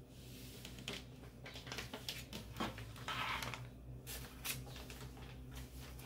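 Paper and fabric rustling as a printed sublimation sheet taped to a cotton bodysuit is handled and laid onto a heat press platen, with a few light taps and one louder rustle a little past the middle. A steady low hum runs underneath.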